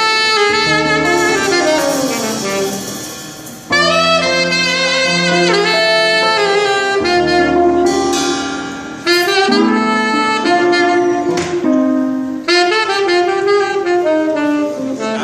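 Saxophone playing a smooth jazz melody in long phrases over held backing chords, the phrases breaking off briefly about three and a half and nine seconds in.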